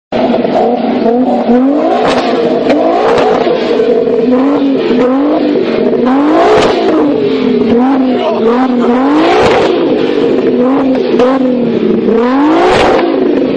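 Volkswagen Golf engine revved hard again and again, its pitch rising and falling in quick succession, with several sharp exhaust bangs: backfires that throw flames from the exhaust.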